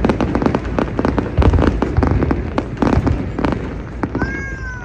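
Fireworks display, with many sharp bangs and pops in quick, irregular succession. Near the end comes a brief high-pitched tone that falls slightly.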